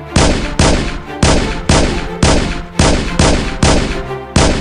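Gunfire sound effect: about nine loud bangs in a steady rhythm, roughly two a second, over quiet background music.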